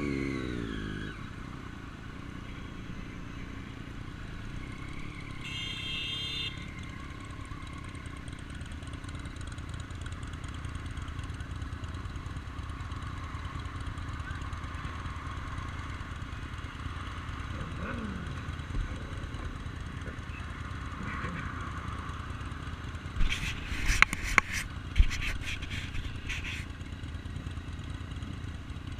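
Vehicle engines and road noise: an engine passes at the start with its pitch falling, then a steady low rumble continues. A brief high-pitched tone sounds about six seconds in. A run of loud, sharp knocks and clatter comes near the end.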